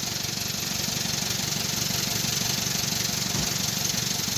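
Car engine idling steadily with an even, fast low pulse while the alternator's charging output is checked.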